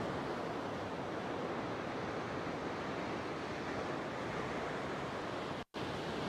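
Sea surf breaking and washing over rocks: a steady rushing noise that drops out for an instant near the end.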